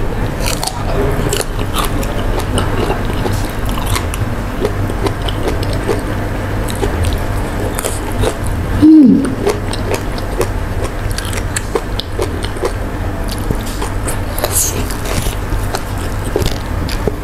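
Close-miked mouth sounds of a person biting and chewing raw vegetables with sambal: many small crisp, wet crunches. About nine seconds in comes one short falling vocal sound, the loudest moment.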